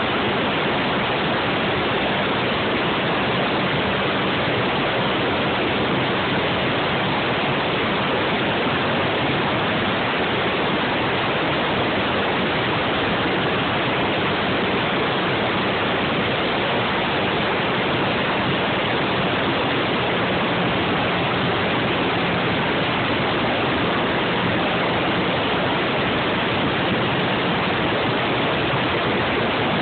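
Steady rush of wind over the microphone on a moving Suzuki Eiger quad, with the ATV's single-cylinder engine running as a faint low hum beneath it.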